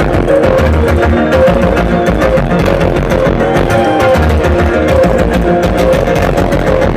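Loud live electronic keyboard and synthesizer music: a pattern of short notes repeats steadily over deep bass notes that swell every few seconds, heard from the audience.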